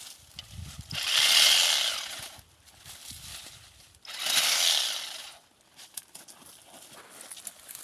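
ABM KH GL-500 battery-powered shoot-removal machine running its 33 cm cutting head in two bursts of about a second each, with quieter clicks and handling noise between them.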